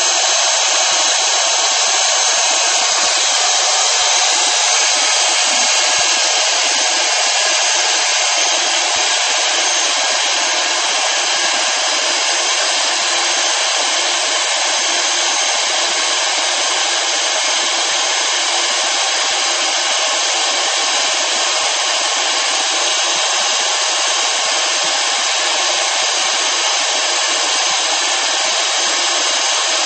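Electric heat gun blowing steadily, a continuous rushing hiss with a faint whine. It is held on the frost-covered end of a liquid-nitrogen supply hose to thaw the frozen connector so it can be unscrewed.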